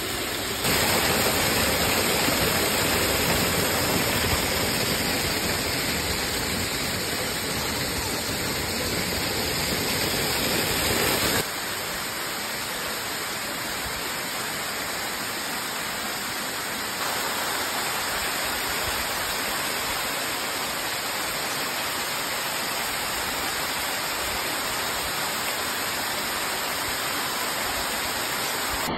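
Waterfall: a steady, dense rush of water pouring down over rock. The level jumps abruptly three times, louder a little under a second in, quieter about eleven seconds in, and a little louder again about seventeen seconds in.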